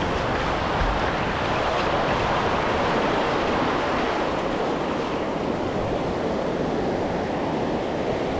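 Surf washing onto a beach in a steady rush, with wind buffeting the microphone.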